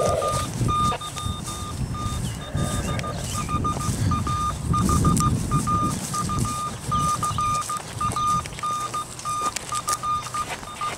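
Hidden fox transmitter's signal heard from a handheld receiver: a single steady beep tone switched on and off in an uneven run of short and long beeps. A louder low rumble runs underneath.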